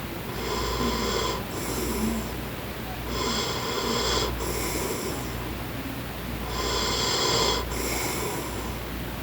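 A middle-aged man snoring steadily in sleep. There are three breaths, about three seconds apart, each a longer snore followed by a shorter one.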